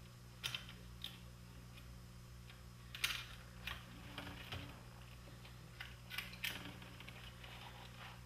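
Irregular small clicks and taps of plastic and metal parts as a cassette deck's tape transport mechanism is handled and lifted out of its chassis, with a sharper knock about three seconds in, over a faint steady hum.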